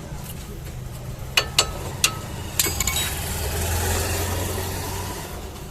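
Car engine running with a steady low hum; a little over a second in come four sharp metallic clicks, then a swell of rushing noise that builds and fades.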